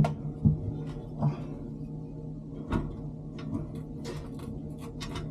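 Irregular knocks and light clatter of metal parts and panels being handled inside a commercial refrigerated prep cooler under repair, over a steady low hum.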